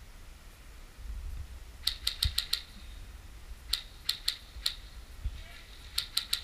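Airsoft guns firing: three quick volleys of sharp clicking shots, about two, four and six seconds in, over a low rumble.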